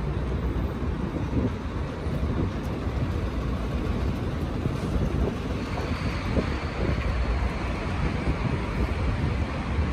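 City street traffic: a steady rumble of passing vehicles, with wind on the microphone. A hiss swells about six seconds in.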